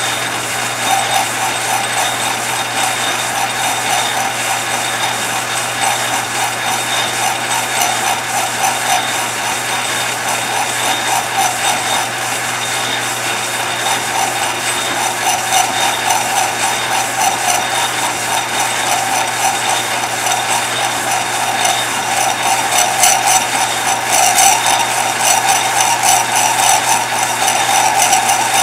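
Old metal lathe running and turning a brass pin while a cutting tool is fed along it by hand. The noise is steady, with a low hum under it and a fast fine ticking that grows louder in the last few seconds.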